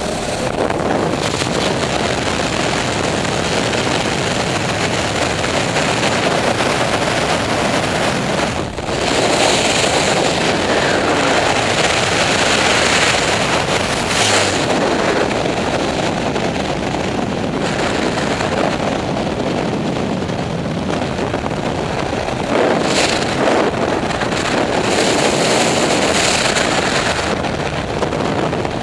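Rushing wind of skydiving freefall buffeting the camera microphone, a loud steady noise that swells and eases, with a brief drop a little before the middle.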